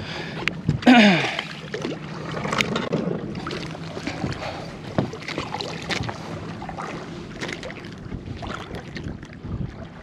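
Irregular splashing, knocks and clicks as a hooked speckled trout is fought and brought alongside a boat, with a short sound falling in pitch about a second in.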